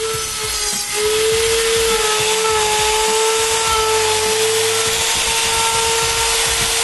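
Router on a Pantorouter joinery machine running with a steady whine and wood-cutting noise while cutting tenons. Its pitch dips slightly and it gets louder about a second in, then holds steady.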